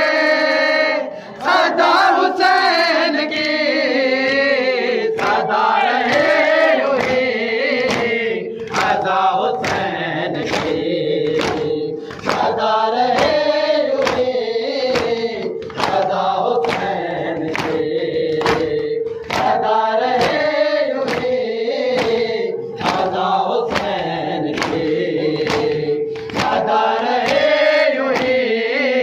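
A group of men chant a Shia noha (Urdu lament for Hussain) in unison. A steady rhythm of sharp chest-beating slaps (matam), a little under two a second, keeps time with the chant.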